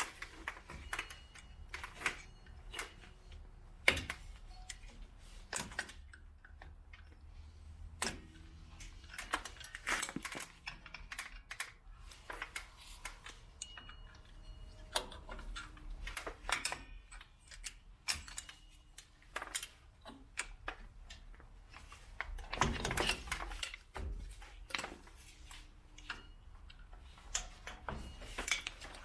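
Irregular light metallic clicks and taps of a screwdriver and tools working on a truck's rear drum brake, pushing a popped-out wheel cylinder pin back into place. A denser burst of scraping clatter comes about three quarters of the way through.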